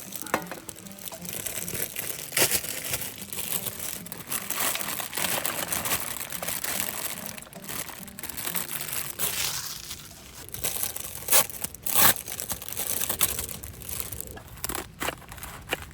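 Plastic packaging crinkling and rustling as it is handled and torn open, with a few sharp clicks or knocks, the loudest two close together about three-quarters of the way through.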